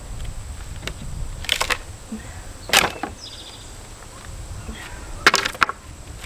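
Pallet boards being pried off the stringers with a pallet buster: sharp cracks of wood and nails pulling loose in three bursts, about a second and a half, three seconds and five seconds in.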